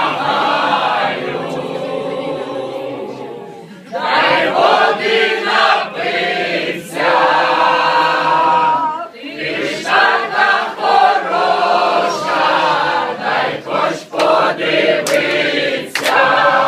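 A group of men and women singing together in chorus, unaccompanied by instruments. The singing thins out and fades about two to three seconds in, then starts up again loud about four seconds in and carries on in phrases.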